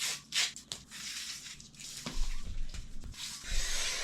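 Rubbing, scraping and rustling of hook-and-loop strips and screen mesh being pressed firmly into place, with a couple of dull thumps in the second half.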